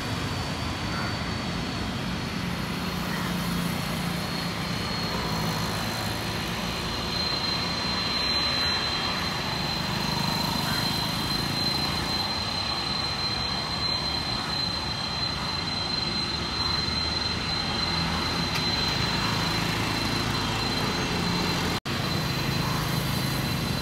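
Boeing 747 freighter's jet engines running at taxi power as the aircraft turns on the runway: a steady rumble with a high, steady whine. The sound cuts out for an instant near the end.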